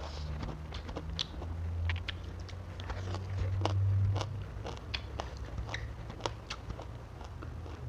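Close-mic chewing of fried tilapia with raw leafy greens: irregular crunches and wet mouth clicks, over a low steady hum.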